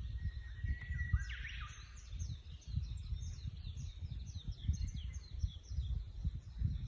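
Wild songbirds singing: a held whistled note, a quick falling sweep, then a fast run of high, falling chirps, over a constant low rumble.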